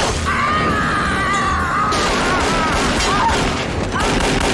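Movie fight soundtrack mix: a high, wavering held tone for the first couple of seconds over a dense rumbling background, then a run of sharp crashes and knocks.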